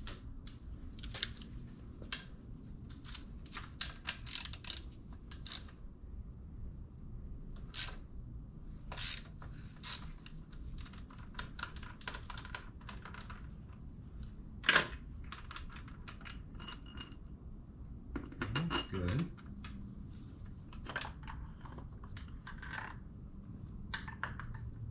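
Scattered light metallic clicks and clinks of hand tools opening the oil filter housing to check that the engine has primed with oil, with one louder knock about 15 seconds in.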